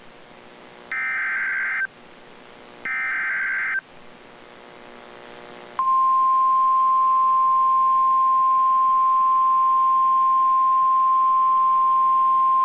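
Emergency Alert System SAME header: two one-second bursts of screechy digital data tones, a second apart, the last two of the three header repeats. About six seconds in, the steady single-pitch NOAA Weather Radio attention tone starts and holds, louder than the bursts.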